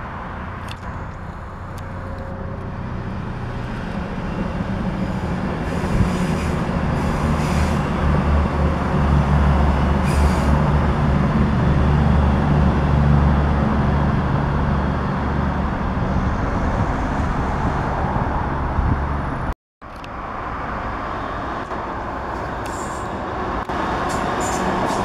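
CrossCountry Voyager diesel multiple unit passing, its underfloor diesel engines droning low and growing louder to a peak around the middle. After a sudden cut about twenty seconds in, a London Midland Class 323 electric multiple unit runs past, more quietly.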